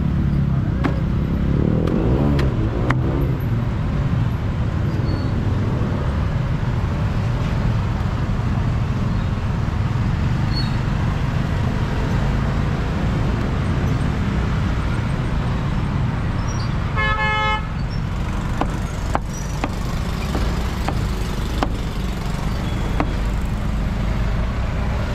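Steady rumble of street traffic, with one short vehicle horn toot about two-thirds of the way through. Scattered sharp knocks of a cleaver striking a wooden chopping block.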